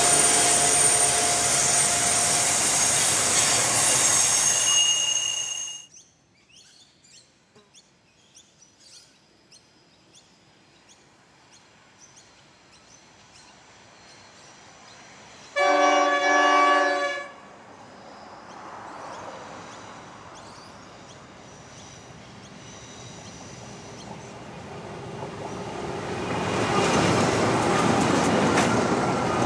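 Freight wagons rolling past with steady wheel squeal, then after a sudden cut near quiet, a diesel locomotive's multi-note horn sounds once for about a second and a half. The engines of Pacific National NR-class and 82-class diesel locomotives then grow louder as they approach, becoming loud near the end as they pass.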